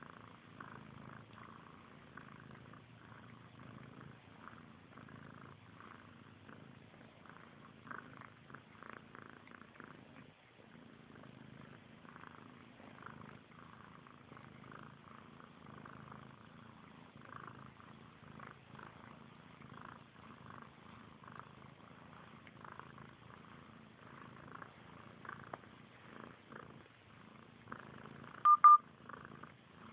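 Kitten purring steadily, a continuous low pulsing rumble. Near the end there is one short, much louder sound.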